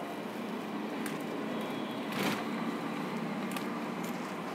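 Steady background hum with a few faint clicks and a short rustle about two seconds in.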